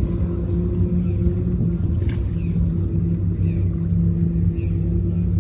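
Powerboat engines running with a low, steady drone that holds the same pitch throughout.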